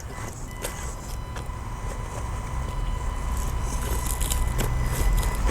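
Small 1/18-scale RC rock crawler (Axial UTB18 Capra) creeping over rocks: a steady high whine from its electric motor and gears, with scattered small clicks and scrapes of tyres and chassis on stone, growing louder toward the end.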